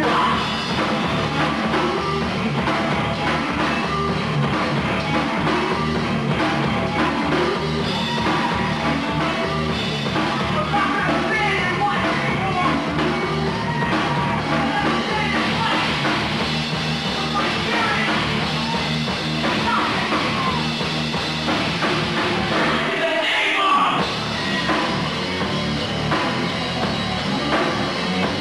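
Rock band playing loud and live, with guitar, bass, drums and a singer. About 23 seconds in, the low end drops out for roughly a second before the full band comes back.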